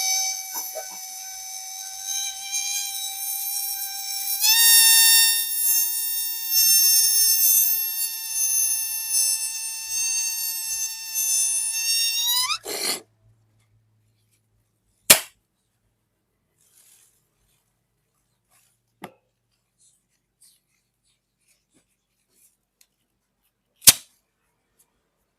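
Air squealing out through a stretched rubber balloon neck: one steady, high, reedy tone that steps up in pitch about four seconds in and cuts off suddenly near the middle. After a pause come three short, sharp bangs, the first and last loud and the middle one softer.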